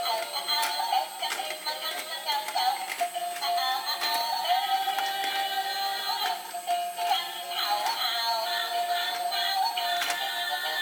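Tinny, high-pitched electronic tune from a toy washing machine's built-in music player, with no bass, playing while the machine runs a wash.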